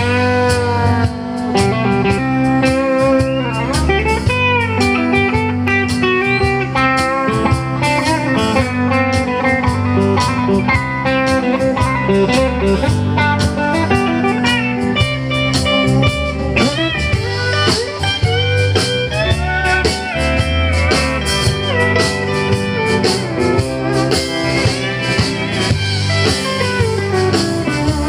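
Live country band playing an instrumental break with no singing: steel guitar and electric guitar lines full of sliding, bending notes over strummed acoustic guitar, bass and drums.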